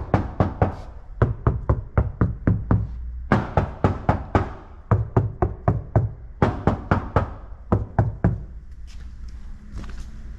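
Knuckles knocking in quick runs on the sheet-metal panels of a Citroen C3, a knock test of how the sound-deadening mats deaden the panel. The knocks are sharp and come about four to six a second, in several bursts with short pauses between them.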